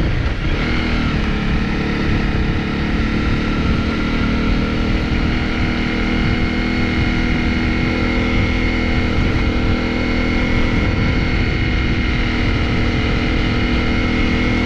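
Honda CRF250's single-cylinder four-stroke engine running steadily on the move. Its pitch dips about half a second in, then holds steady over a rumble of wind on the microphone.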